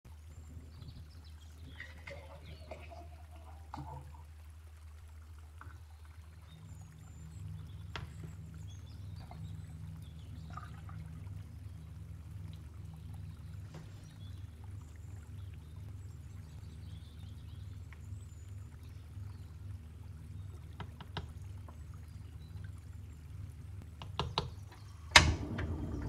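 Liquid being poured and glass and kitchenware handled, with scattered light clicks over a low steady hum. Just before the end, a few sharp clicks, one very loud, then a steady hiss: a gas stove burner being lit under the saucepan.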